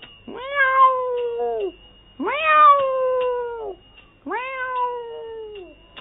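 A cat meowing: three long, drawn-out meows, each rising at the start and sliding slowly down at the end.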